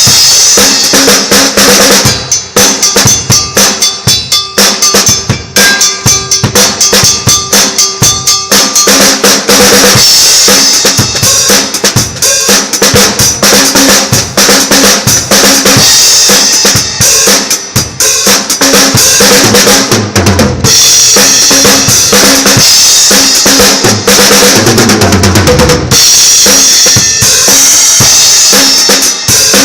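A drum kit played fast and loud, with rapid kick, snare and rimshot hits, over sustained pitched notes from another instrument; a note slides down in pitch about twenty-five seconds in.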